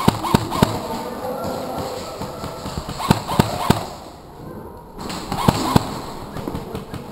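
Airsoft gun shots fired in quick groups of two or three, each shot a sharp crack about a third of a second apart: three near the start, three about three seconds in, and two more a couple of seconds later.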